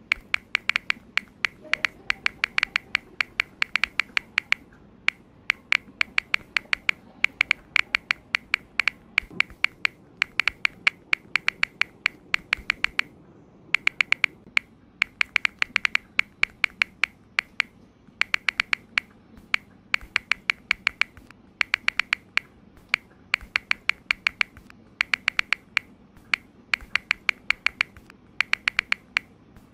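iPhone on-screen keyboard clicks as a message is typed: quick runs of sharp taps, several a second, broken by short pauses.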